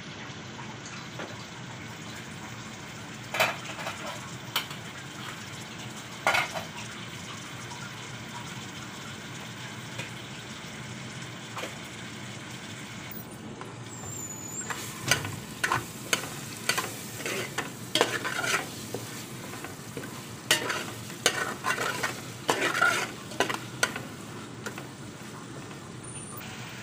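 Sliced onions sizzling in oil in a metal pot, stirred with a steel spoon that scrapes and clinks against the pot: a few knocks early, then a busy run of clinks and scrapes through the second half.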